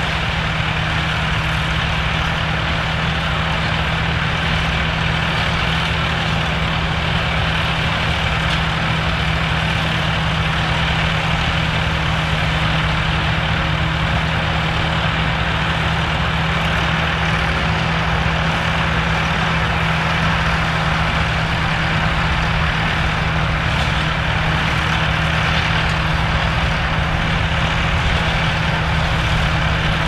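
Vintage threshing machine running at a steady speed as sheaves are fed into its drum: a continuous even drone with a strong steady low hum.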